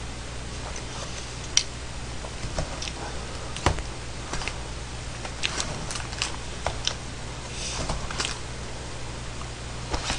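Chopsticks clicking and scraping against a plastic takeout container while mixing jjolmyeon noodles, in scattered sharp taps, the loudest about a second and a half and three and a half seconds in, over a steady low hum.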